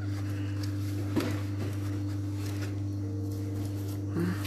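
A steady low hum with a faint click about a second in.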